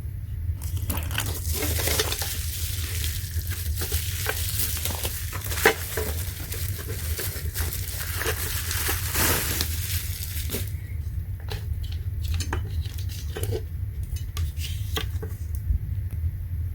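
Handling noise from a plastic solar flood light and panel being moved around: rustling with many small clicks and knocks, easing off after about 11 seconds. A steady low hum runs underneath.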